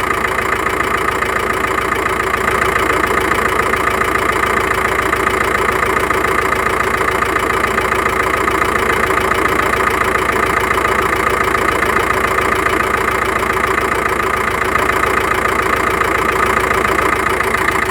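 Volkswagen T5 engine idling evenly, with a tapping knock from under the valve cover whose cause is not yet known.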